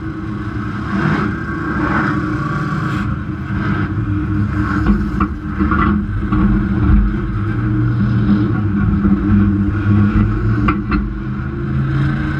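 Vehicle engine idling with a steady, slightly uneven low rumble, and a few sharp metal clanks about five seconds in and again near the end as the wrecker crew hooks up the car's front.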